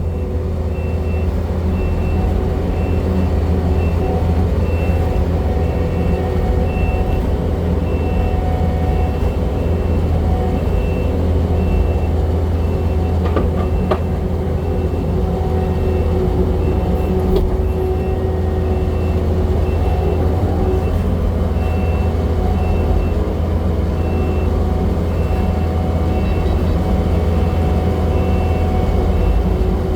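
Kubota skid steer's diesel engine running steadily as the machine backs up onto a rollback flatbed, with a reversing alarm beeping at a regular pace. A couple of sharp clanks come about halfway through.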